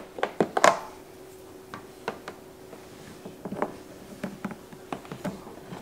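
Light plastic clicks and knocks of a power cord being handled and its plug pushed into the socket on a plastic egg incubator's lid, most of them in the first second, with scattered small clicks after and a faint steady hum underneath.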